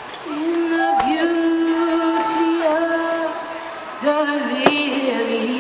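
Music with a singer holding long, slightly wavering notes. A single sharp firework bang cuts through about four and a half seconds in.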